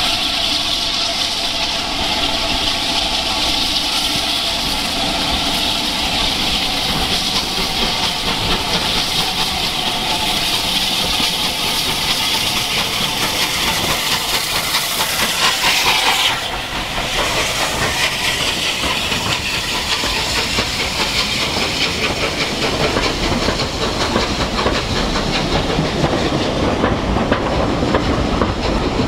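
A Bulleid pacific steam locomotive passes close with a loud, steady hiss of steam that cuts off suddenly about halfway through. Its train of coaches then rolls by with a rumble and a clatter of wheels over the rail joints.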